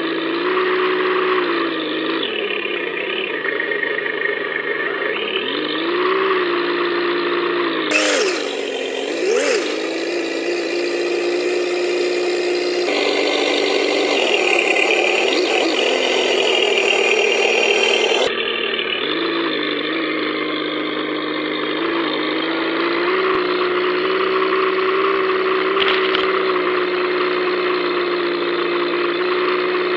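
Simulated V8 engine sound from the RC truck's onboard sound unit, played through its small speaker as the Tamiya M1025 Hummer crawls through mud. The engine note dips and rises with the throttle a few times in the first ten seconds, then mostly holds a steady idle-like pitch.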